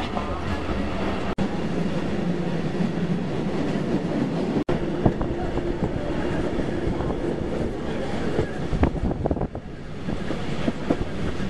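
Running noise of a passenger train carriage heard from inside: a steady rumble of wheels on the track with scattered clicks and rattles.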